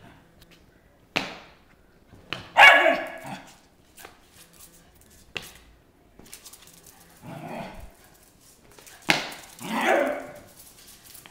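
A dog giving playful barks and yips, three bursts, the loudest about two and a half seconds in, the others near seven and nine and a half seconds. A few sharp knocks fall between them.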